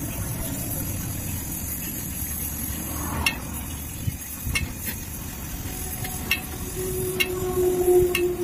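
Gas welding torch flame hissing steadily against an aluminium alloy wheel rim as filler rod is melted into the weld, with a few sharp clicks from about three seconds in. A steady low hum comes in over the last two seconds.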